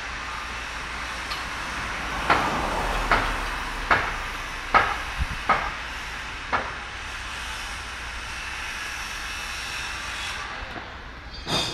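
Steel scaffolding being dismantled: a run of about seven sharp, ringing metal knocks, a little under a second apart, then one more clank near the end, over a steady hiss of site noise.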